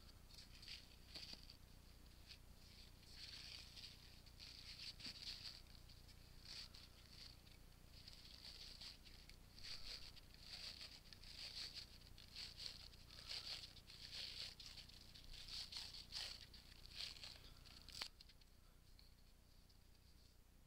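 Faint, irregular crackling and rustling of pro-wrap tape being unwound from its roll and pulled around the butt end of a badminton racquet handle, with one sharp click about eighteen seconds in.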